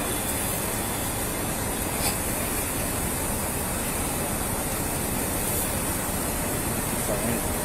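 Steady outdoor background hiss picked up by a police body camera's microphone, even and without any rhythm or tone, with a faint click about two seconds in.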